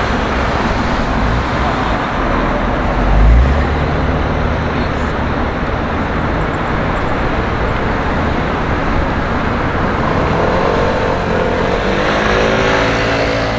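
Busy street traffic: cars driving past with engines running and tyre noise, and a vehicle's low engine rumble swelling about three seconds in.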